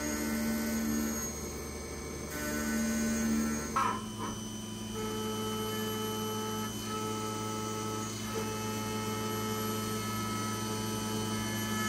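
CNC milling machine's spindle running while a small end mill cuts a metal block: a steady machine hum with whining tones. The tones change abruptly about four seconds in, with a brief sharp burst at the change.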